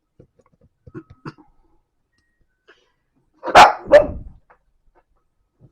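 A dog barking twice in quick succession, two short loud barks about half a second apart.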